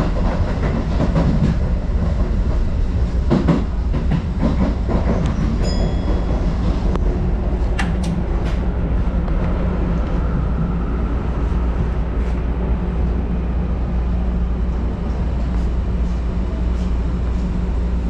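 Keio Sagamihara Line electric train running, heard from inside the carriage: a steady low rumble with wheel clicks over rail joints in the first few seconds. A brief high ringing comes about six seconds in, another sharp click a little later, and then a faint whine.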